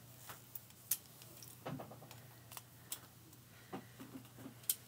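Faint, scattered clicks and light taps of an interchangeable crochet hook and its parts being handled, over a low steady hum.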